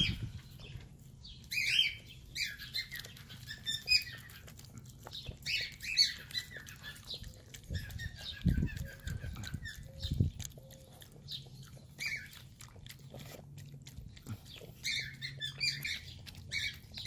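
Birds chirping and squawking over and over in short falling calls, with a small dog's wet licking and lapping clicks as it eats raw egg. Two dull low thumps come about eight and ten seconds in.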